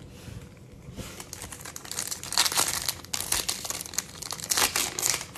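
Foil wrapper of a Bowman Platinum baseball card pack crinkling and tearing as it is ripped open by hand. The crinkling grows busier and louder about two seconds in.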